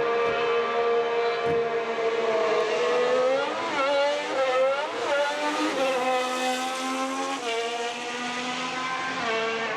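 Racing Bulls VCARB03 Formula 1 car's Red Bull Ford 1.6-litre turbo V6 running at steady revs, its pitch wavering up and down briefly midway, then dropping to a lower steady note and rising again near the end.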